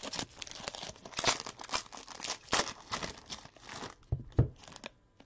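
Plastic wrapper of a trading-card pack being torn open and crinkled, a rapid run of crackles, followed by two low knocks about four seconds in as the card stack is handled.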